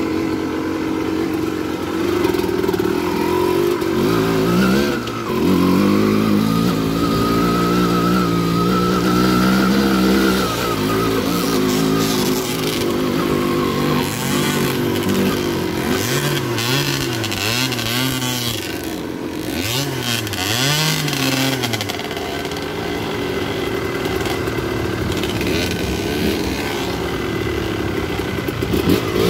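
Dirt bike engine under way, its pitch rising and falling with the throttle, with a run of quick rev-and-drop swells in the middle.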